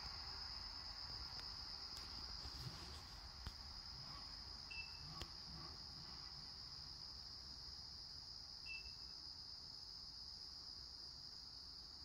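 Faint, steady high-pitched chorus of crickets trilling without a break. Two brief chirps stand out, about five and nine seconds in, and a few faint clicks come in the first half.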